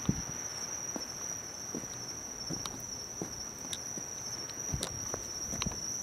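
Footsteps on a paved street, about one step every three-quarters of a second, over a steady, high-pitched chorus of crickets.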